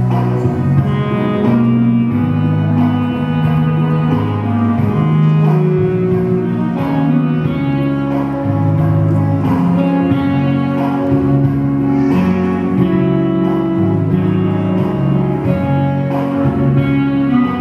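Slow music with long held notes over a low line that moves to a new note about once a second.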